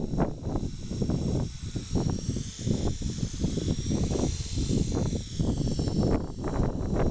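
Electric RC helicopter (Align T-Rex 450) flying, its motor and rotor giving a high, wavering whine that is strongest midway as it passes close. Heavy gusty wind rumble on the microphone is louder than the whine.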